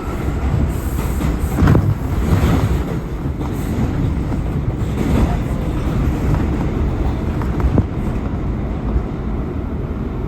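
R179 subway car running through the tunnel: a steady rumble of wheels on the rails, with a few sharp knocks.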